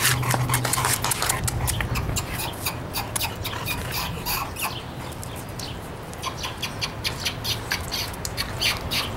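Young bullmastiff puppies whimpering and yipping, many short high cries scattered through, thicker near the end.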